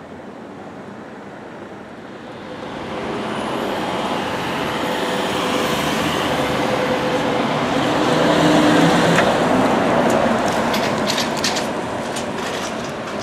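Articulated electric trolleybus approaching and passing close: a steady electric motor hum with tyre and road noise, growing louder to a peak about halfway through and then easing. A run of sharp clicks comes near the end.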